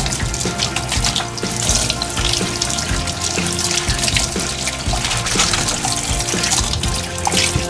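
Shower hose spraying water over a wet Japanese Chin's coat in a grooming tub, with background music and a steady beat.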